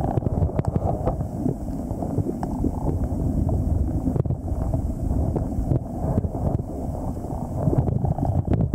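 Underwater noise picked up through a camera housing: a low rushing rumble with scattered clicks.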